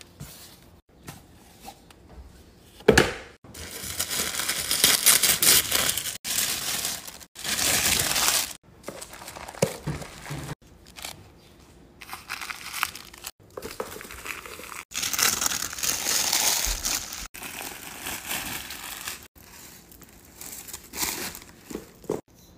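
Tissue paper and packaging crinkling and rustling as a luxury handbag is unwrapped, in several bursts, some cut off abruptly. A sharp tap about three seconds in.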